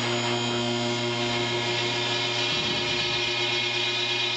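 Electric hydraulic pump motor of a car lift running at a steady hum.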